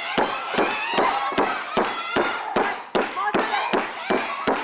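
Wrestling crowd clapping in unison, a steady beat of about two and a half claps a second, with voices shouting over it.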